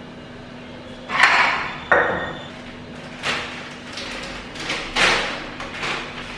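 A stainless steel pot clatters and clanks onto a stone counter about a second in, ringing briefly. After that a paper bag rustles and crinkles in several short bursts as it is opened and handled.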